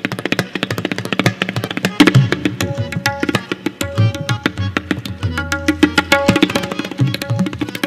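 Solo tabla played in a fast, dense stream of strokes. Crisp ringing strokes on the treble dayan sound at its tuned pitch, and the bass bayan booms and bends in pitch under the heel of the hand, with one longer bass tone a little past the middle.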